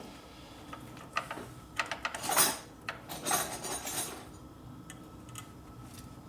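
Metal hand tools clinking and clattering against each other for a few seconds, loudest about halfway through, then quiet.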